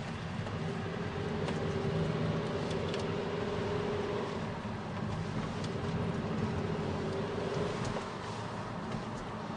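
Steady road and engine noise inside a moving car's cabin, with a faint hum that comes and goes and a few light ticks.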